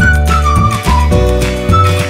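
Background music: a high melody with sliding notes over a steady bass line.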